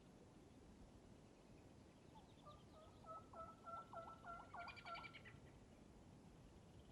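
Faint series of about eight turkey hen yelps, starting about two seconds in and lasting about three seconds, the notes growing a little louder toward the end.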